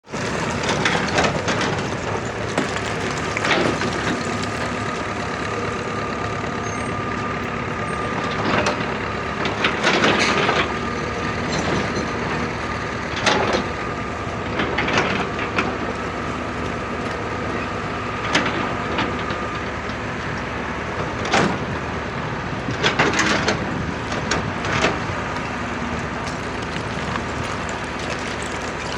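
Excavator engine running steadily under load, with irregular sharp knocks and clatter of rock every second or two.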